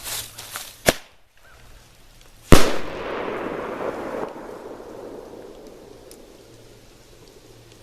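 Aerial firework: sputtering crackles and a sharp pop at launch, then about a second and a half later a loud bang high up, followed by a long echo that rolls away over several seconds.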